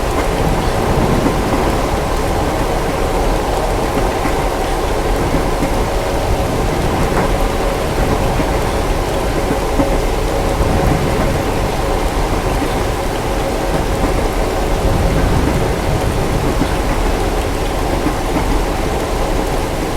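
Steady rain with the low rumble of distant thunder over a faint continuous hum, as in a layered rain-and-train sleep ambience.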